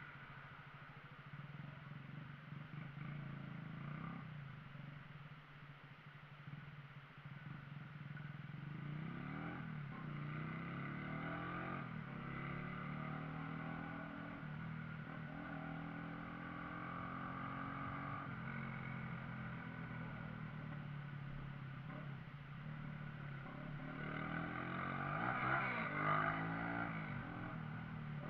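Shineray Viúva Negra motorcycle engine running while riding, its pitch rising and falling with the throttle. The loudest rev comes near the end.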